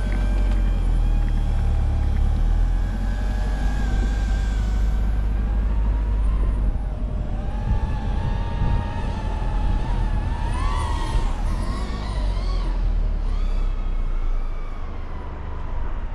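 Heavy low rumble of a moving vehicle and wind, with a whining tone that holds steady for stretches and wavers in pitch about ten to twelve seconds in. The rumble fades near the end.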